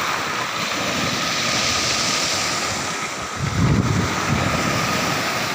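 Sea waves washing on the shore, with wind buffeting the microphone; a louder surge of water comes about three and a half seconds in.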